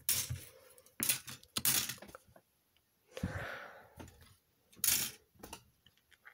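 Short, separate bursts of rustling and light clacking as a plastic model kit's box, bags and parts are handled and searched through, with quiet gaps between them.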